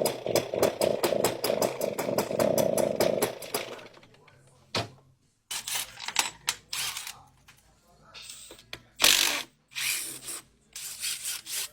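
The small two-stroke engine of a Stihl backpack sprayer runs with a fast, even pulsing beat, then shuts off about three and a half seconds in. Scattered irregular knocks and rustles of handling follow.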